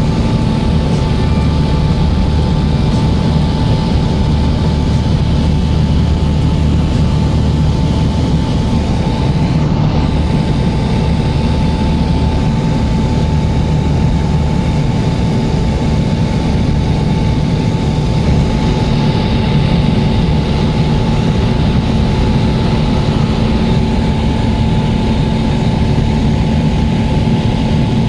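Small propeller airplane's engine droning steadily in flight, heard from inside the cabin, with a steady high whine over the low drone.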